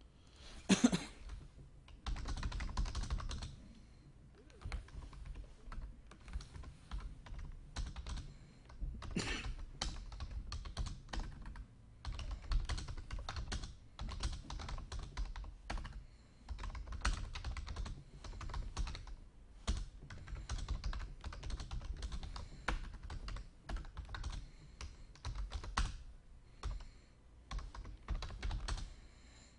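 Typing on a computer keyboard: bursts of rapid keystrokes broken by short pauses. A single louder, short sound about a second in.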